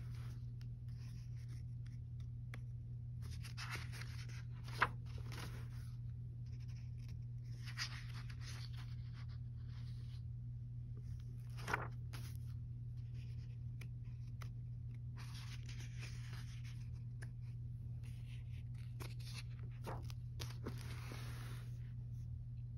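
Pages of a coloring book being turned and handled, the paper rustling in a series of short bursts, with two sharp taps about five and twelve seconds in, over a steady low hum.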